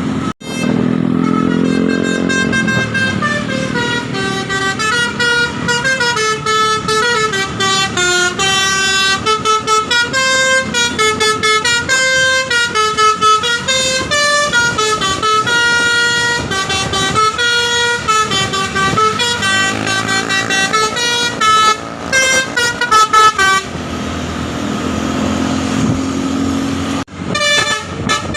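Bus 'telolet basuri' musical air horn playing a fast melody of stepped tones for about twenty seconds, over the bus engine running. After a pause with just the engine, the horn sounds again near the end.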